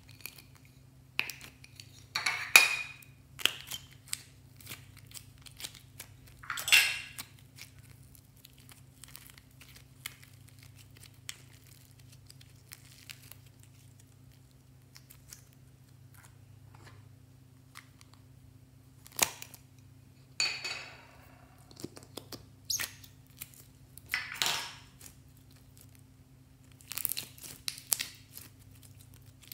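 Slime squeezed, stretched and folded by hand: scattered sharp clicks and pops of sticky slime, with a few louder squelching bursts, over a steady low hum.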